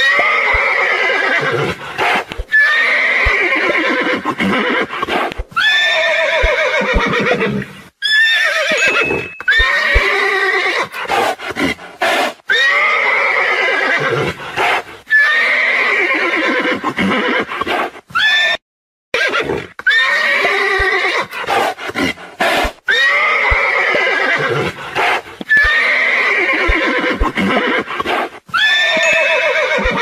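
Horse neighing again and again, a whinny with a wavering, falling pitch every two to three seconds, with short sharp knocks between the calls.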